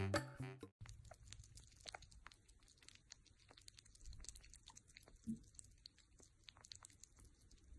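Music cuts off within the first second. Then sugar gliders licking and eating from a plastic cup make faint, quick little clicks and smacks.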